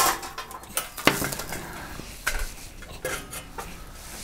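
Charcoal briquettes clattering out of a metal chimney starter into a Petromax Atago's stainless-steel bowl, with scattered metallic clinks and knocks as the last coals tumble and the chimney knocks against the rim.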